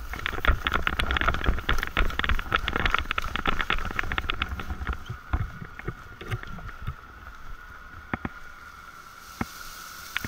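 Paramotor landing on grass: a fast, dense run of knocks and rustles with wind on the microphone as the pilot touches down and runs out. The noise thins to a few scattered knocks after about five seconds, over a faint steady whine.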